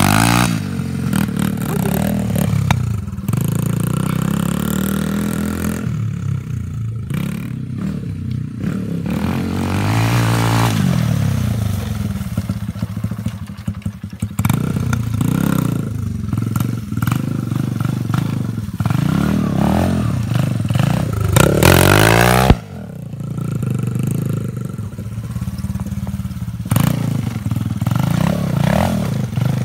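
Small dirt bike engine revving up and down as the bike is ridden and turned through snow, its pitch rising and falling repeatedly. A sharp thump about two-thirds of the way through is the loudest moment.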